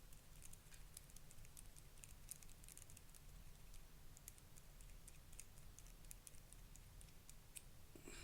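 Faint, irregular small metal clicks and ticks as tools work on a Paclock UCS padlock core.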